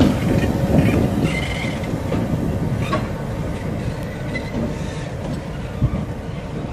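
Transnet Class 35-800 EMD diesel locomotives running as they move slowly along the depot track, with a brief high wheel squeal about a second in.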